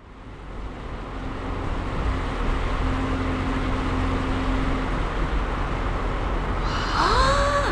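A car driving: steady road and engine noise with a deep rumble, fading in at the start. Near the end, a short pitched sound rises and then holds.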